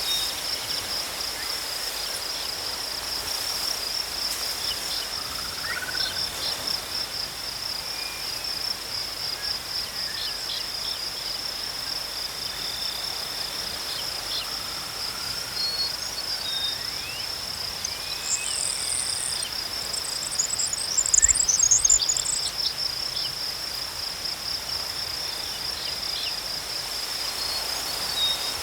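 Crickets chirping in a steady, fast-pulsing high trill. Faint gliding whistles come and go, and about two-thirds of the way in a brief burst of higher chirping rises over the chorus.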